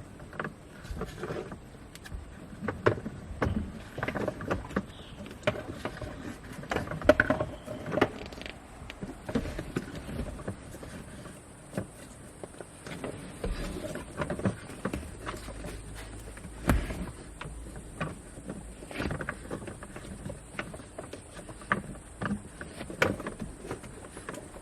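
Irregular clicks, knocks and rustles of hands working with parts and tubing during a boost gauge install, some knocks sharper and louder than others.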